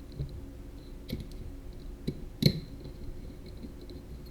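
A few light clicks and taps of small parts being handled as a circuit board is fitted onto a CubeSat board stack. The loudest click comes about two and a half seconds in and rings briefly.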